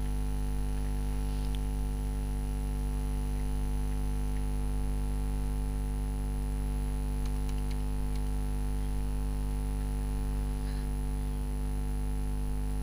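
Steady electrical mains hum, a low buzz with a faint high whine above it. A few faint clicks come about seven seconds in.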